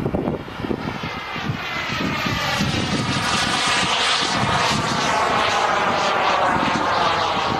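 Model turbine jet engine of an RC Turbinator sport jet running with a whine. It grows louder over the first few seconds, then holds steady.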